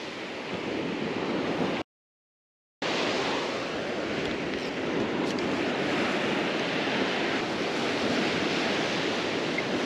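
Surf breaking and washing onto a sandy beach, heard as a steady rushing noise, with wind on the microphone. The sound cuts out completely for about a second, about two seconds in, then comes back louder.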